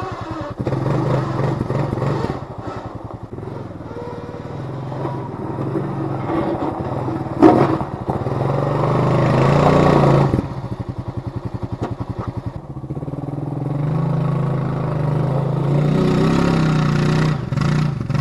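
Honda FourTrax ATV engine running as the quad plows snow. It revs up under load twice, from about seven seconds to ten and again from about fourteen to seventeen, with a sharp bang about seven and a half seconds in.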